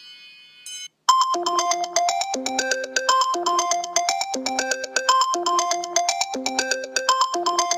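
iPhone ringtones: the bell-like tones of one fade out, and about a second in the next starts, a fast melody of bright, clean notes that repeats the same phrase about every two seconds.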